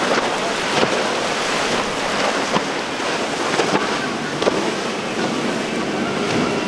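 Steady rush of surf and spray as a cabin cruiser runs fast through choppy inlet waves, with wind on the microphone.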